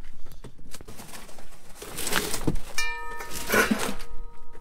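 Large cardboard shipping box being shifted and scraped on concrete, with rustling and scraping strongest about two seconds in and again near the end. A steady held tone comes in about three seconds in and keeps going.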